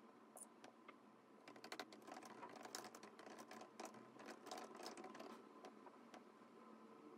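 Faint typing on a laptop keyboard: a quick run of keystrokes from about one and a half seconds in until about five seconds in, then only a few scattered taps.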